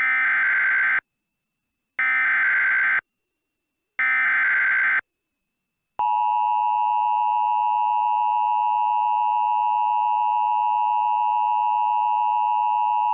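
Emergency Alert System SAME header: three one-second bursts of buzzing data tones, a second apart. Then, about six seconds in, the EAS two-tone attention signal (853 and 960 Hz together) comes in and holds steady.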